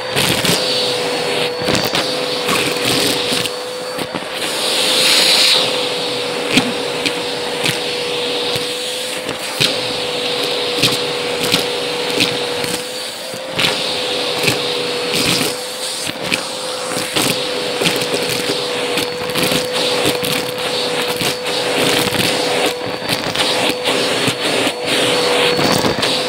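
Vacuum cleaner running steadily with a crevice-tool nozzle, sucking dried beans and seeds off carpet. The beans clatter and crunch up the nozzle in many quick, irregular clicks over the steady motor whine.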